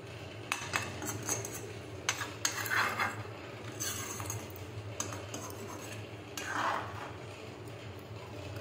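Metal ladle stirring a watery curry in a kadhai, scraping and clinking irregularly against the pan's sides and bottom, over a steady low hum.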